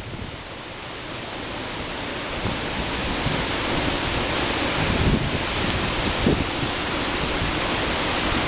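Strong storm wind rushing through trees as a thunderstorm front arrives, a steady hiss that builds gradually louder.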